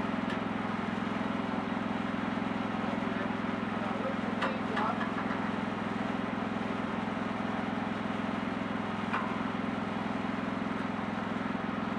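Wood-Mizer portable sawmill's engine running steadily, with a few faint clicks.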